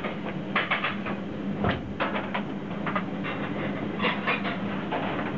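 Restaurant kitchen during service: a steady hum under frequent knocks and clatter of cookware and utensils being handled.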